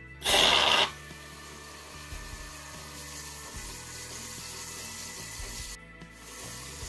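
DeLonghi Dinamica's milk frother running on the hot-milk setting with soapy water: a short loud hiss of steam near the start, then a steady hiss as frothy water runs from the spout, with a brief pause near the end. Faint background music underneath.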